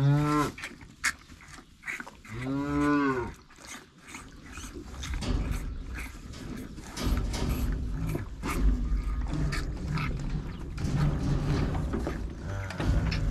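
Cattle mooing: two long moos near the start, about two seconds apart, and a fainter one near the end. In between come low scuffling and scattered clicking noises.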